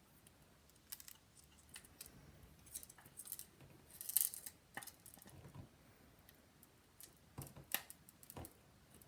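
Faint, irregular clicks and scrapes of a small hand tool working against an iPhone 5's housing while the power button assembly is pried loose, the loudest click about four seconds in.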